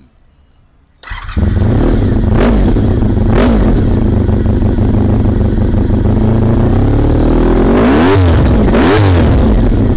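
Honda RVF400's V4 engine through an aftermarket carbon-fibre silencer, coming in abruptly about a second in and idling, blipped twice briefly, then revved twice more near the end.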